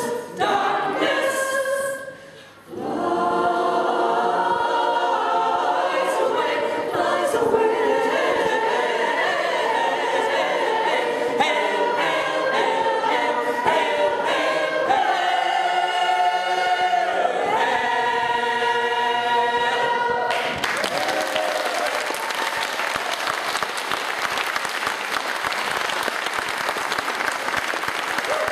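Mixed choir of men and women singing unaccompanied, with a short break about two seconds in. The song ends about twenty seconds in, and the audience applauds for the rest.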